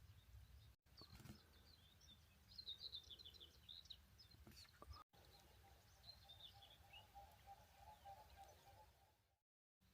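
Faint outdoor ambience: small birds chirping in short high bursts over a steady low rumble, with a rapid lower trill running through the second half. The sound cuts out abruptly for a moment three times.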